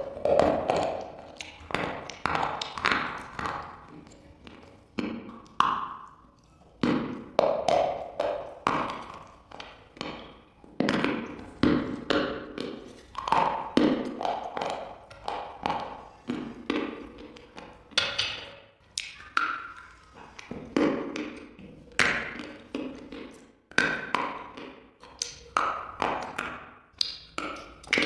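Close-up bites and crunchy chewing of hard white chalk-like blocks, sharp crunches in quick clusters about every second.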